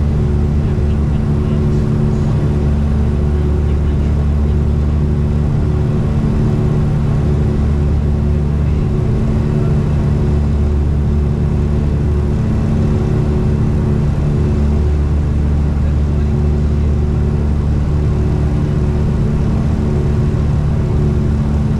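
Cabin drone of the Tecnam P2006T's twin four-cylinder Rotax engines and propellers in flight, running steadily at approach power. A deep throb swells and fades every few seconds.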